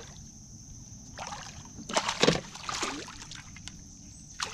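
Water splashing and sloshing in a few short bursts, the loudest about two seconds in.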